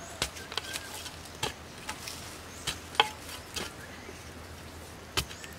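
Metal digging bar stabbing and scraping into dry, stony soil: a string of irregular sharp knocks and scrapes, the loudest about three seconds in and another near the end.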